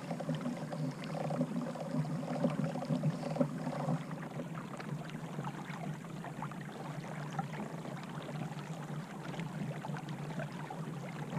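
Small-water lapping and splashing against a kayak hull, with many light ticks, and a low steady hum during the first four seconds that then fades.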